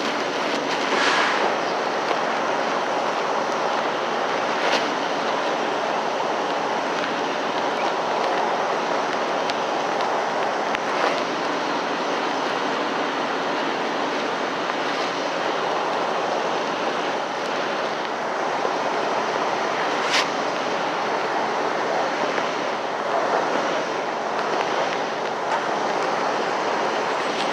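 Steady noisy rumble of a truck-stop diesel fuel island, with a few sharp clicks.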